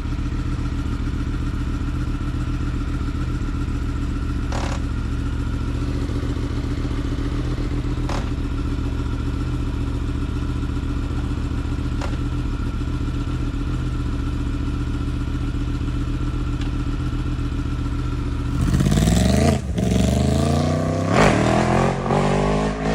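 Yamaha MT-10's crossplane inline-four engine idling steadily, with a few faint clicks, then revved in several sharp blips from about eighteen seconds in, the pitch rising and falling with each.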